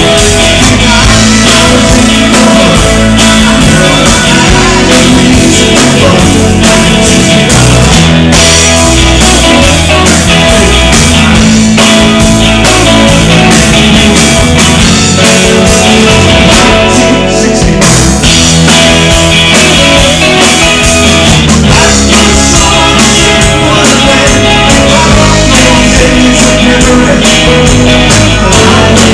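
Live rock band playing loud and without a break: electric guitar, bass guitar and drum kit.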